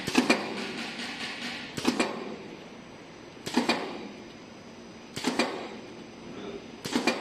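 Cutter on a pet-chew production line clacking about every 1.7 seconds, five strokes in all, each a quick cluster of sharp metallic clicks as it chops the extruded chew strip into sticks. A steady machine hum runs underneath.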